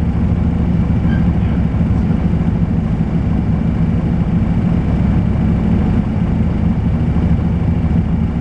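Volvo B10BLE single-decker bus's diesel engine running steadily with a low drone, with a faint high-pitched whine held above it.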